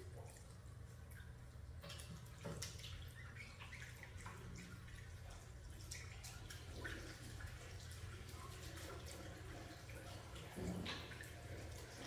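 Faint water splashing and dripping at a washbasin as someone washes by hand, with small irregular clinks and two louder knocks, one about two and a half seconds in and one near the end. A steady low hum runs underneath.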